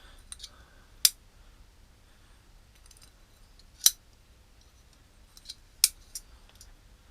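WORKPRO folding utility knife's blade lock clicking as the knife is snapped open and shut: three sharp clicks spaced a few seconds apart, with fainter ticks between.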